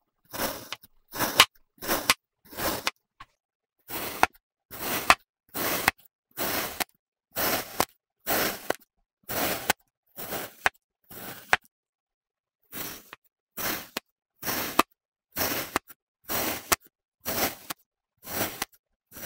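Kinetic sand being cut, one short cut after another at a little under two a second, with brief pauses about three and twelve seconds in.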